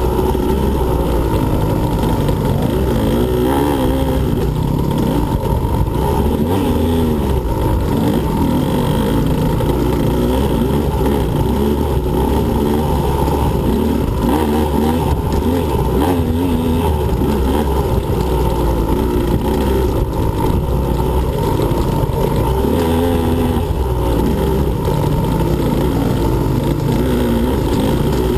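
Two-stroke engine of a 2015 Husqvarna TE125 dirt bike running hard under race riding. The revs rise and fall every second or two as the throttle is worked and the gears change.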